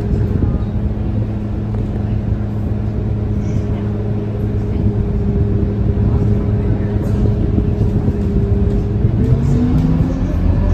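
Scania K230UB bus's five-cylinder diesel engine idling with a steady hum while the bus waits in traffic, heard from inside the cabin. The pitch starts to rise about nine seconds in as the bus pulls away.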